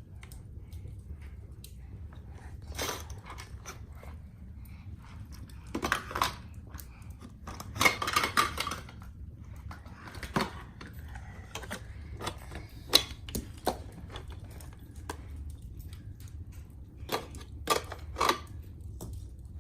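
Small toy cars clicking and clattering against a plastic toy parking garage, in scattered knocks with a short rattling run about eight seconds in, over a faint steady low hum.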